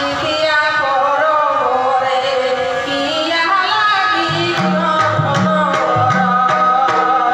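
A woman sings an ahira folk song, a Purulia folk-song form, in a melodic line over steady instrumental accompaniment. About four seconds in, a drum joins with a steady rhythm of beats under her voice.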